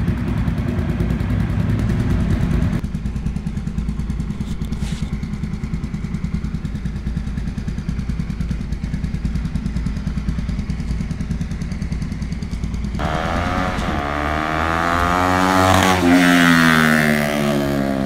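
Bajaj Pulsar NS200's single-cylinder engine idling steadily through an Akrapovic slip-on exhaust fitted with a dB killer. Near the end the revs rise slowly and fall back, and the exhaust note grows louder.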